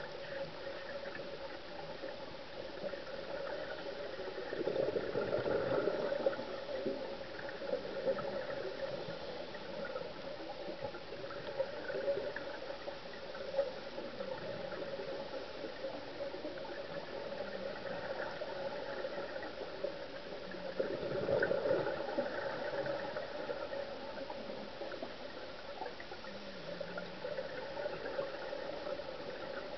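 Underwater ambience picked up through a camera's housing: a steady muffled hiss, with two louder swells of bubbling about five seconds in and again about twenty-one seconds in, the scuba diver's exhaled regulator bubbles.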